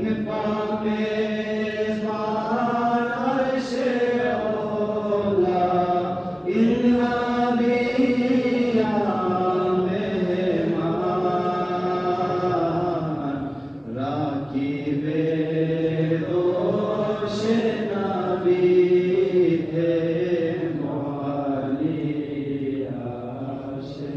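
A solo voice chanting a devotional verse in long, drawn-out phrases whose pitch slides and wavers on held notes. It pauses for breath about six and a half seconds in and again about fourteen seconds in.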